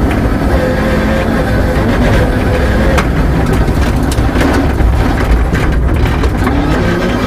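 Peugeot 306 rear-wheel-drive rally car's engine running hard, heard from inside the cabin over the rumble of the car on a gravel road, its note shifting as it is driven. A few sharp knocks break through, the clearest about three seconds in.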